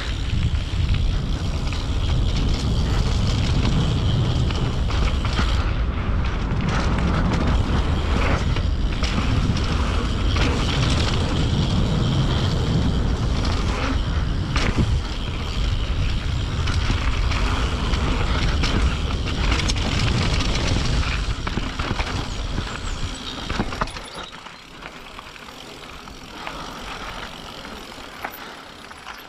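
Mountain bike ridden fast down a dirt forest trail: wind buffeting the camera's microphone with a heavy rumble, tyres rolling over dirt, and the bike rattling and knocking over bumps. The noise drops much quieter near the end.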